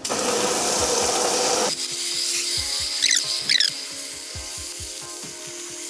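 Water spraying from a garden hose nozzle into a plastic tub of detergent powder, a loud steady hiss that drops to a thinner, quieter hiss about two seconds in, with background music underneath.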